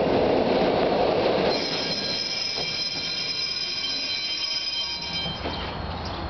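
A tram car's steel wheels squealing on the rails, a steady high squeal of several tones that starts about a second and a half in and stops near the end. Loud even noise comes before the squeal starts.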